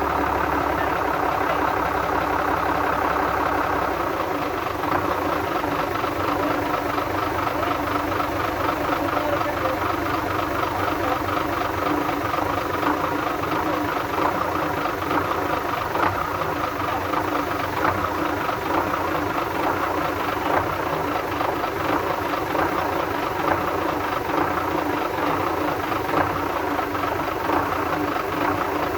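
Engine idling with a rapid, even ticking knock from the valve train, which the owner takes for a knocking rocker arm.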